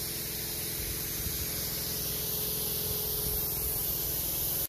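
Sandblasting: a steady hiss of compressed air and abrasive from a pressure sandblaster's nozzle stripping a steel car frame, over a low steady hum. The hiss cuts off abruptly at the end.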